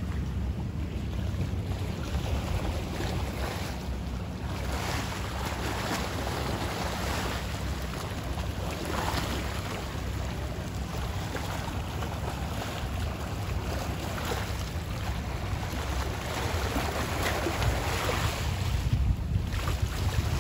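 Wind buffeting the microphone with a steady low rumble, over small sea waves washing against shoreline rocks in slow surges.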